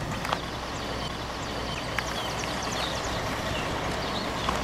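Steady low rumble of vehicle engines, with scattered short high chirps and a single click about two seconds in.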